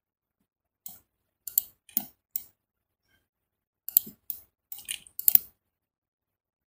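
Clicking of a computer mouse and keyboard as curves are selected and edited in CAD software. There are short, sharp separate clicks in two clusters, one starting about a second in and one about four seconds in.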